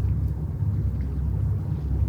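Low, steady rumble of a passing ship's diesel engine.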